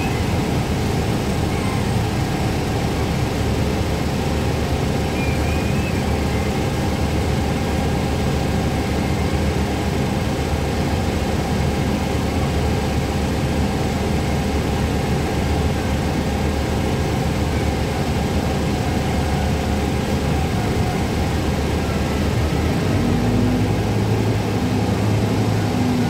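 Cabin sound of a 2012 Gillig Advantage Low Floor 30-foot transit bus under way: engine running steadily with road noise, its note rising near the end.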